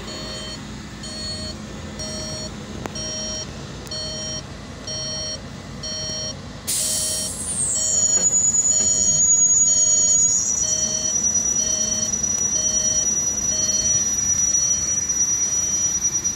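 A heavy vehicle's reversing alarm beeping about once a second. About six and a half seconds in, a sudden loud hiss of air breaks in. It settles into a high, steady whistle that is louder than the beeps and runs on under them.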